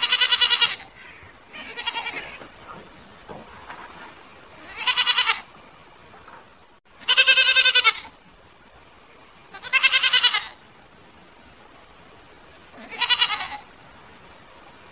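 Goat bleating: six wavering, high-pitched bleats about two to three seconds apart, the second faint and the fourth the longest and loudest.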